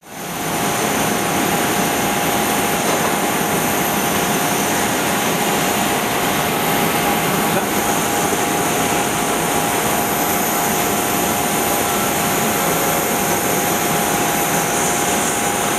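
Airbus A320's jet engines at taxi power: a steady rushing noise with a steady whine over it, fading in at the very start.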